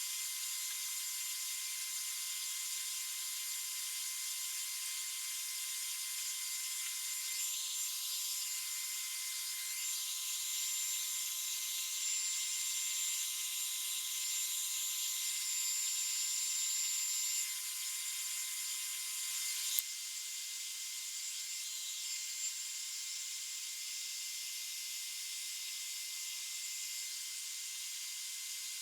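Steady hiss with a thin, high, even whine, a little louder through the middle, and a single sharp click about twenty seconds in.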